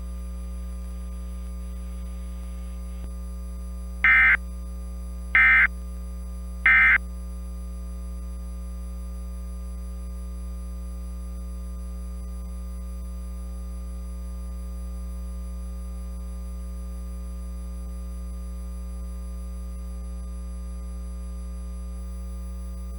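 Emergency Alert System end-of-message code: three short, loud digital data bursts about 1.3 s apart, sent after the spoken warning to close the alert. A steady electrical hum runs under them and on after.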